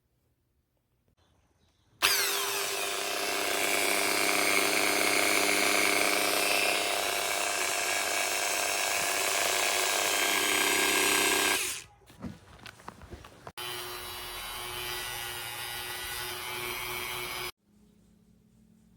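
Dremel 4000 rotary tool running at high speed while cutting into a plastic tail light housing: a loud, steady high-pitched whine for about ten seconds, a brief stop with a few crackles, then a second, quieter cutting run of about four seconds before it stops.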